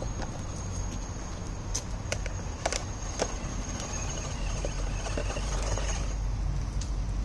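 A 1/10-scale RC rock crawler on JConcepts Megalithic tires clambering over boulders: its tires and chassis tap and knock on the rock several times, and a faint electric-motor whine rises and falls around the middle.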